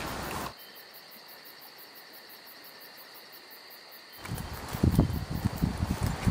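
Insects chirping in a steady, evenly pulsing high drone; about four seconds in, louder footsteps and rustling through leaves and undergrowth begin.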